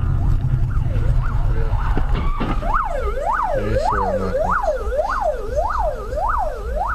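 Emergency vehicle siren in a fast up-and-down yelp, about one sweep every 0.6 s, faint at first and much stronger from a little under three seconds in. A low rumble of vehicle and road noise runs underneath and is heaviest at the start.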